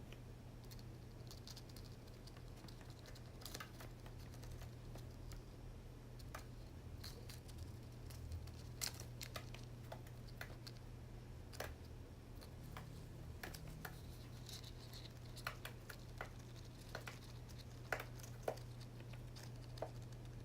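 Scattered, irregular light clicks and taps on a computer keyboard over a low steady hum.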